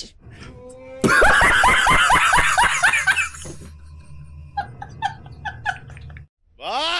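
A man laughing hard: a loud burst of rapid, repeated laughter from about a second in, trailing off into quieter snickers near the end.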